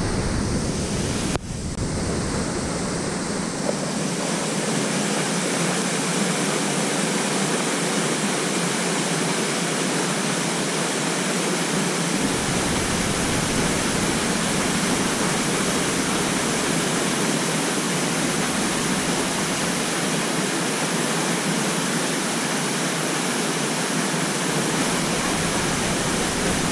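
Steady rushing of a mountain-stream waterfall pouring into a natural rock pool.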